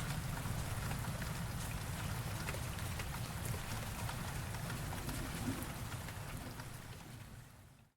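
Steady rain falling, with the patter of individual drops over a low rumbling wash. It fades away near the end to a brief silence.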